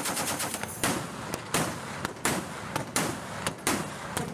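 .50-caliber machine gun firing: a rapid burst at the start, then a string of separate shots at uneven intervals, each trailing off in an echo.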